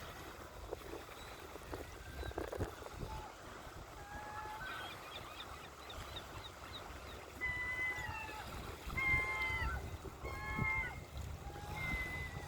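Birds calling at the shore: a run of short, clear calls, each slightly falling in pitch, repeated several times and getting louder from about seven seconds in. Beneath them is a steady low rumble of ocean waves and wind.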